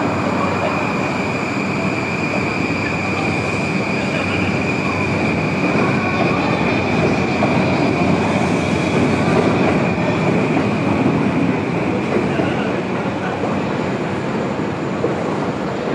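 Train running past on the rails: a steady rumble of wheels and carriages with a high-pitched whine held over it.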